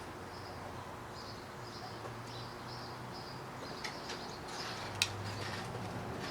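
Faint high bird chirps repeating about twice a second over the first few seconds, above a low steady hum, with a sharp click about five seconds in.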